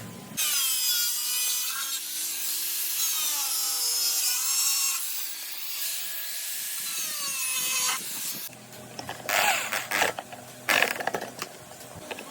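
A power tool cutting through material with a high, shifting squeal. After about eight seconds it drops away into a few short rasping strokes.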